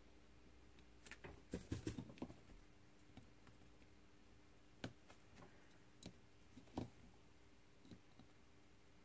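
Faint clicks and taps of a small circuit board and side cutters being handled and set down on a bench mat during hand soldering. A quick flurry of taps comes about a second in, then a few single clicks are spaced through the rest.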